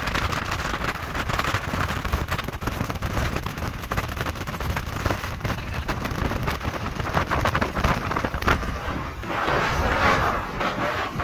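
Yamaha 75 outboard motor running at speed while towing, under heavy wind buffeting on the microphone and the hiss of water spray. A louder rush of water comes near the end.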